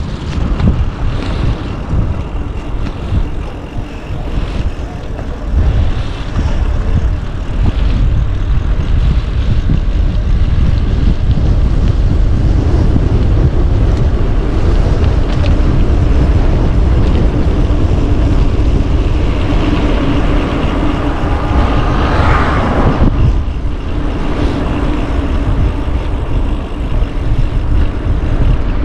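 Heavy wind rumble on the microphone while riding a bicycle. A steady pitched hum comes in during the second half, and a short rising whine sounds about three quarters of the way through.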